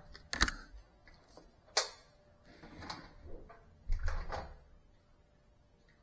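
A few sharp knocks and clicks, the loudest about half a second in and just before two seconds, with a cluster of softer knocks around four seconds in, then only faint room hiss.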